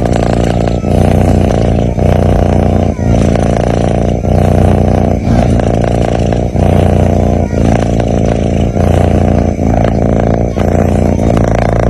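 Sleeping kitten's loud rumbling breath, snoring, close to the microphone, in even cycles with a short break about once a second.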